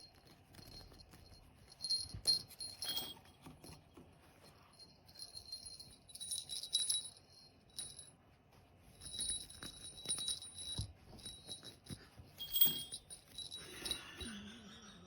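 Pet otter making high-pitched squeaky calls in four bouts of a second or two each, with scattered clicks and rattles between them.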